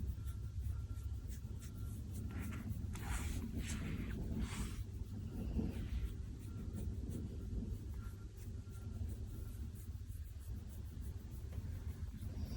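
A sleeping Chihuahua snoring, with three or four noisy breaths between about two and five seconds in, over a low steady rumble.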